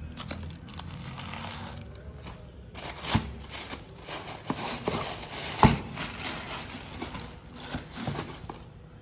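Tissue paper crinkling and rustling as sandals are handled and lifted out of a shoebox, with a couple of sharper knocks, the loudest about five and a half seconds in.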